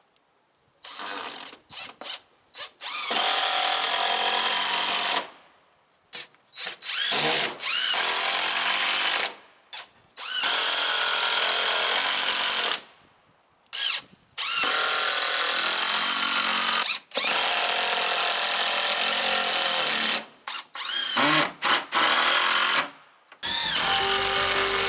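Power drill run in a series of trigger pulls, runs of one to three seconds with short blips between, its motor whine rising at each start and falling at each stop.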